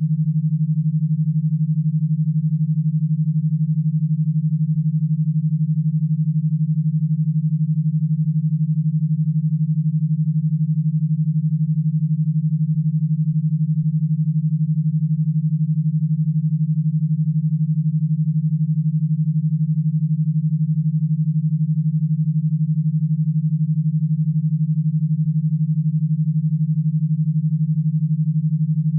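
A single synthesized low tone, steady and unchanging, generated as a 12 Hz e-stim signal meant to drive electrode stimulation rather than for listening.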